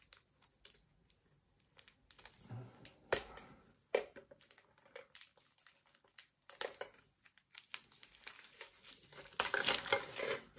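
Plastic shrink wrap on a Pokémon card tin crinkling and tearing in irregular bursts as it is picked and pulled at, busiest near the end; the wrap is hard to open.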